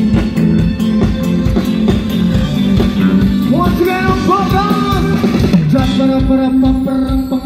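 Live band playing with a steady drum beat, bass and guitars. A singer's voice comes in about halfway, holding and bending long notes.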